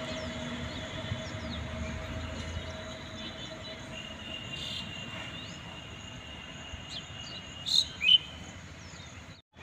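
Locomotive approaching in the distance, a faint steady rumble under outdoor insect noise. Two short, loud chirps sound about eight seconds in.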